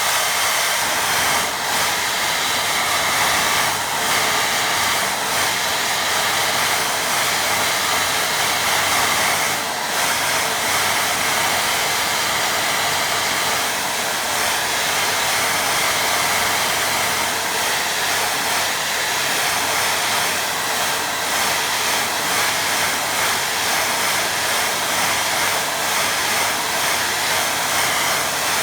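Hair dryer blowing steadily on a watercolour painting to dry the paint: an even, loud hiss that switches on suddenly and does not vary.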